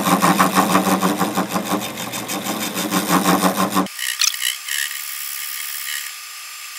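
Atlas 618 lathe running, turning a cast-iron chuck back plate, with a steady, rhythmic scraping and rasping. About four seconds in, the low part of the sound cuts off abruptly, leaving only a thin high hiss.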